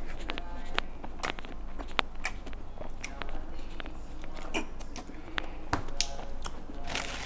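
Close-miked mouth sounds of eating: irregular wet clicks and smacks of chewing, with a drinking straw held in the mouth.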